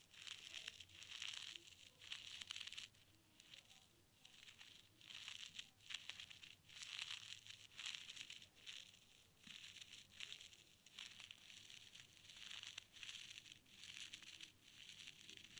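Ear-cleaning tools working in an ear: faint, irregular scratchy rustling strokes with small clicks, coming every half second to a second with short pauses.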